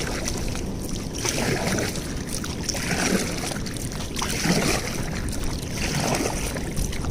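Pedal boat's paddle wheel churning water, a rushing swish about every second and a half as the pedals turn slowly, over steady low wind noise.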